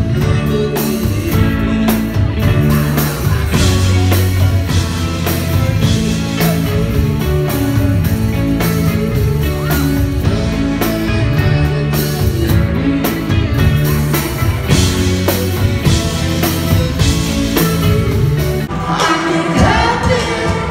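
Rock band playing live with electric guitars, bass, drums and a singer. About nineteen seconds in the music changes to a different song.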